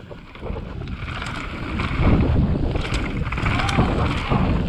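Mountain bike riding fast down a dirt trail: wind rushing over the microphone and tyres rumbling and rattling over rough ground, louder from about two seconds in.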